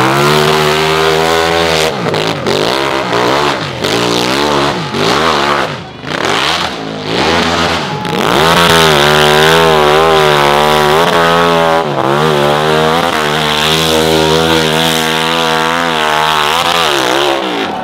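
Dirt bike engine on a hill climb. It revs up and down in short bursts for the first several seconds, then runs at high revs with a wavering pitch as the bike climbs a steep dirt slope, easing off just before the end.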